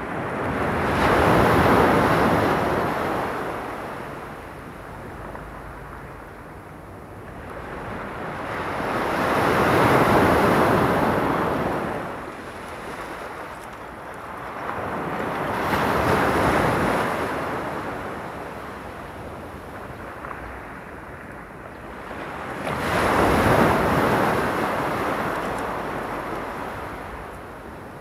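Small sea waves washing onto a stony beach, four in turn, each swelling over a couple of seconds and then slowly fading into a softer hiss before the next.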